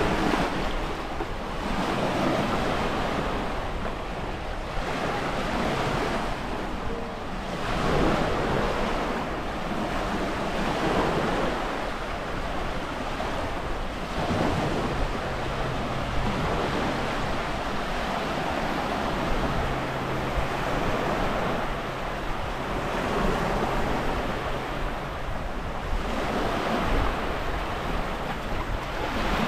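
Sea waves washing in and drawing back along the shore, swelling every few seconds, with wind buffeting the microphone. A faint low steady hum runs through the middle stretch.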